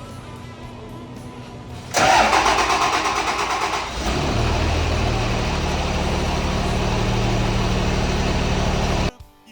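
5.9 Cummins diesel engine being cranked by the starter for about two seconds, then catching and settling into a steady idle. The sound cuts off abruptly near the end.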